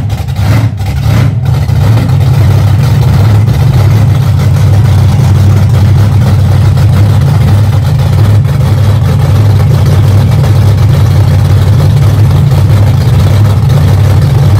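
Monster truck engine running loud and steady at low revs.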